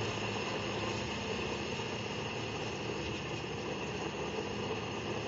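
Steady engine and road noise inside a moving vehicle's cabin.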